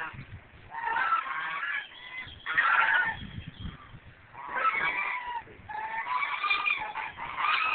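Several white domestic geese honking in repeated bouts of calls, with short pauses between the bouts.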